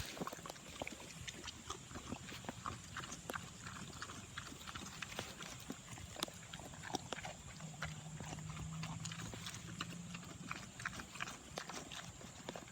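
An animal crunching and chewing cucumber: a run of quick, irregular crisp crunches. A low steady hum comes in for a few seconds past the middle.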